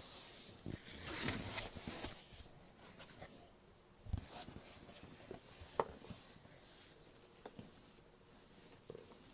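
Rustling and scraping of packaging being handled as a doll's box is opened and looked into, loudest about a second in, with a few small knocks.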